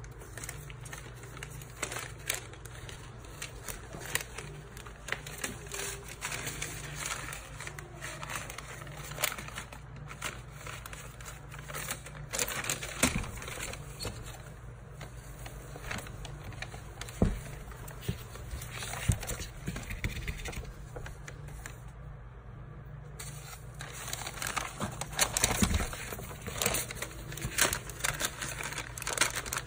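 Paper bag and newspaper rustling and crinkling irregularly as a Maltese puppy moves about under the bag, with a few louder scrunches midway and near the end.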